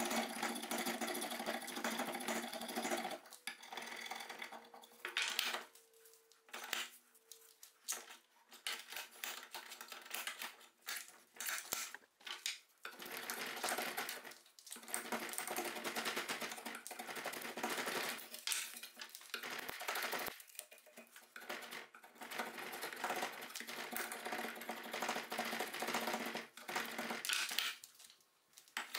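Drawknife shaving a wooden axe handle held in a bench vise: a run of rasping cutting strokes, each lifting a curled shaving, with short pauses between strokes.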